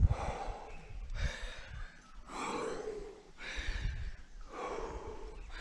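A rock climber's heavy, hard breathing close to a helmet-mounted microphone, about one forceful breath a second from the strain of climbing a hard route. Low rumbles of wind or handling on the microphone come and go between breaths.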